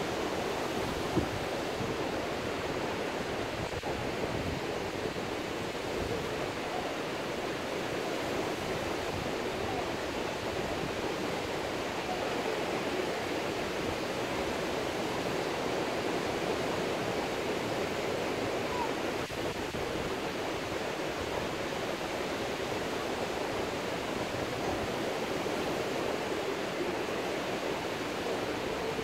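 Ocean surf breaking on a sandy beach: a steady, unbroken wash of waves. There is one brief click about a second in.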